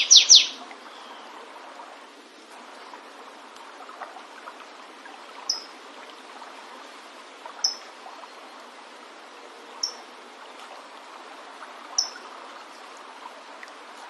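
A flavescent warbler's loud song of quick, steeply falling notes ends about half a second in. Then come four short, high call notes about two seconds apart, over a steady rush of running water.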